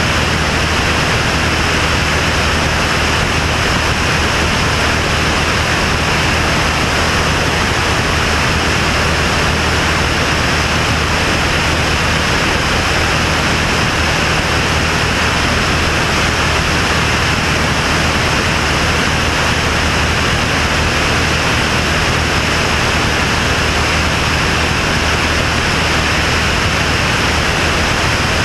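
Light single-engine propeller plane in steady cruise: the engine and propeller make an even low drone under a loud, constant rush of wind.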